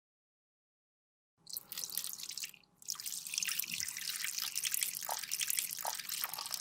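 Dense wet crackling, like liquid dripping and trickling, starting after a second and a half of silence and broken briefly near three seconds in.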